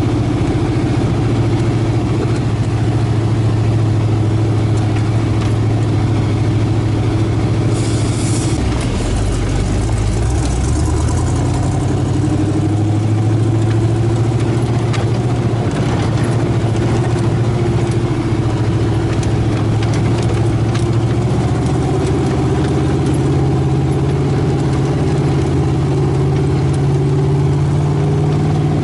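The Chevy 350 V8 in a 1975 Toyota FJ40 Land Cruiser running steadily under way. Its note drops about eight seconds in, then climbs gradually again.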